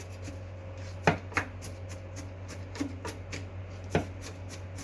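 Garlic being crushed for a steak seasoning: a few sharp knocks, two close together about a second in and one near the end, over a steady low hum.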